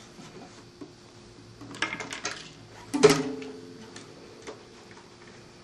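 Small acoustic guitar being picked up and handled: a few light knocks, then a louder bump about three seconds in that sets its open strings ringing briefly.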